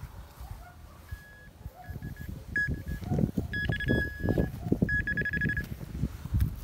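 Nokta Makro Simplex metal detector beeping over freshly dug soil. It gives several short high beeps, a longer steady tone about three and a half seconds in, and a warbling tone near the end, signalling a metal target in the hole. Soft knocks and scraping of soil being handled run underneath.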